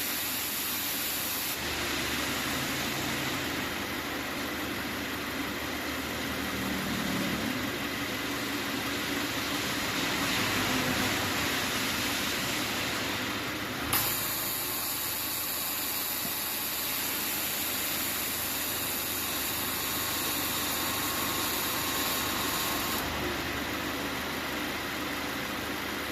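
Subaru Forester 2.0T's turbocharged flat-four idling with the air-conditioning running: a steady hum under a hiss. There is a single sharp click about fourteen seconds in, and a higher hiss sets in with it and drops away near the end.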